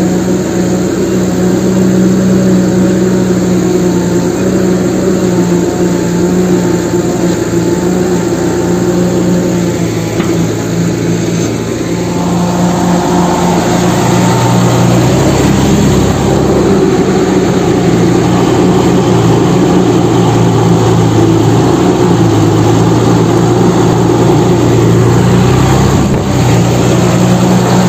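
Engine running steadily at a constant pitch, its deeper drone growing stronger about twelve to fifteen seconds in.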